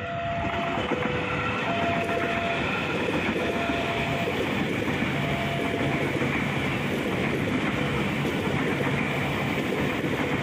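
KRL Commuterline electric multiple unit passing close by, its wheels running steadily on the rails. Faint short steady tones come and go over the train noise during the first six seconds.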